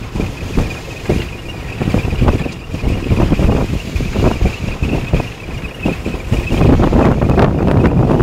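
Golf cart driving, with heavy wind buffeting the microphone and many irregular thumps, a thin steady high whine underneath; it gets louder and denser about six and a half seconds in.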